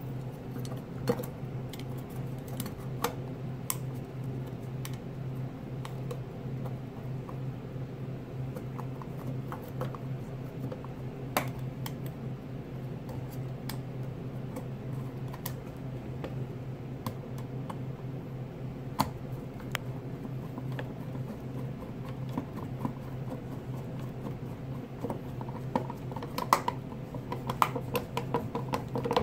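Steel switch-box cover plate being handled and screwed on: scattered light metallic clicks and taps, with a quicker run of clicks near the end as a screwdriver drives the plate screw. A steady low hum runs underneath.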